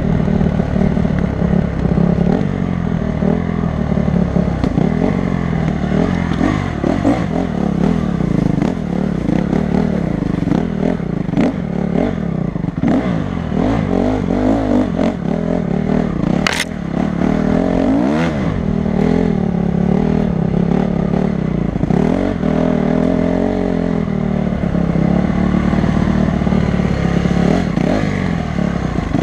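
Honda CRF250 dirt bike's single-cylinder four-stroke engine running off-road, its pitch rising and falling as the throttle opens and eases. Clattering and scraping knocks run throughout, with one sharp crack about halfway through.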